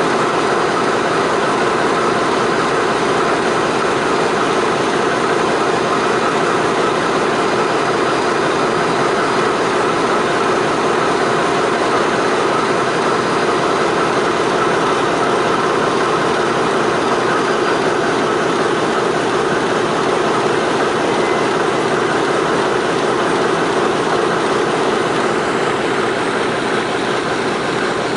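Diesel locomotive engine running steadily, a dense even rumble and hiss that does not change.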